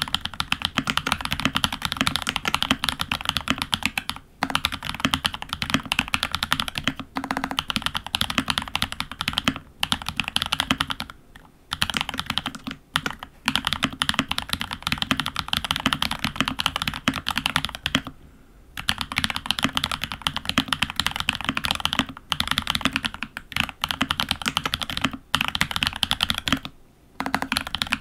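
Fast typing on a FEKER68 mechanical keyboard fitted with Holy Panda–clone switches (Huano Iceblue stems and springs in Gateron housings, lubed with Krytox 105) and Olivia-clone keycaps. A dense, even stream of keystrokes breaks off in short pauses every few seconds.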